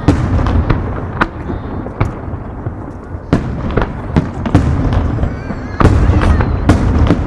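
Aerial fireworks bursting in a rapid barrage, sharp bangs and crackles over a continuous low rumble, with faint whistles of rising shells. The loudest booms come about a second in, past the middle, and near the end.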